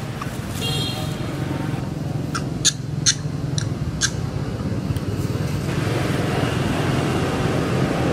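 Steady low rumble of road traffic, growing a little louder about six seconds in, with a quick run of five short sharp clicks between about two and a half and four seconds in.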